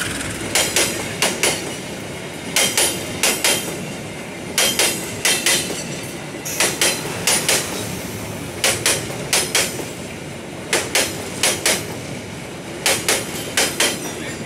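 Wheels of passing K3 economy passenger coaches clattering over rail joints: a clickety-clack of four sharp clacks about every two seconds, as the two bogies at each coupling cross a joint, over a steady rolling rumble.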